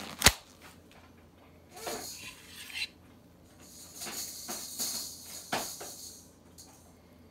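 Stainless marinade injector working in a raw pork butt: a sharp click just after the start, then bursts of hissing and squishing as the liquid is pushed into the meat, the longest stretch in the second half, with a couple of small clicks.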